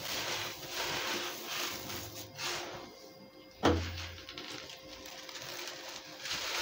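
Soft white concrete lumps crunching and crumbling as hands crush them, with the grit falling and hissing onto a sandy floor. A single sharp thump about halfway through.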